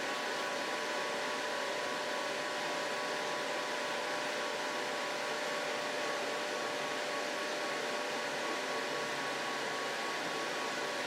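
Jewelry laser welding machine running just after power-on, its water-cooling pump and fan whirring steadily with a few steady tones on top while water circulates into the tank.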